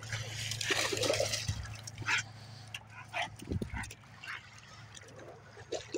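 Dogs wading in a shallow creek, the water splashing and sloshing in uneven bursts, most strongly in the first second and a half.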